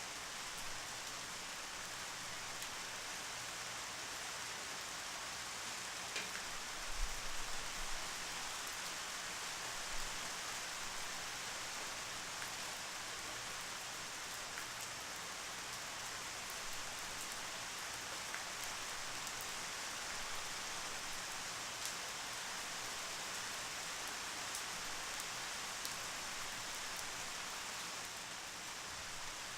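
Steady rain: a dense, even hiss with scattered sharper drop ticks. There is a brief low thump about seven seconds in and a smaller one around ten seconds.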